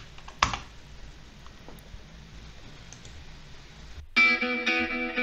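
One sharp computer keyboard key press about half a second in, then a quiet low hum. About four seconds in, guitar music starts suddenly with a steady rhythm.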